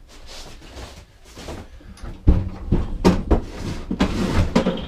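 A Hayter rotary lawnmower being wheeled across a wooden floor and lifted onto a metal lift bench: rolling and rattling, then a run of sharp clunks and knocks from about two seconds in as its wheels and deck bump onto the bench top.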